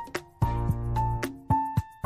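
Background music: an instrumental tune of separate notes, each starting sharply and fading, over a bass line in a regular rhythm.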